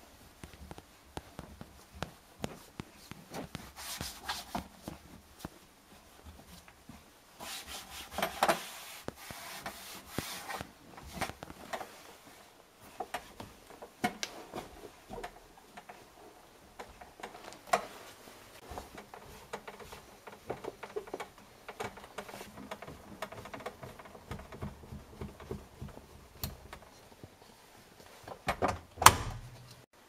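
Intermittent rubbing and scraping with scattered clicks, and one sharp knock near the end.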